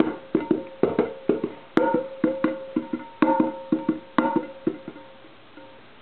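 Metal lid of a stainless-steel coffee pot tapped in a quick rhythmic run, about four or five taps a second, each tap ringing; the taps die away about five seconds in.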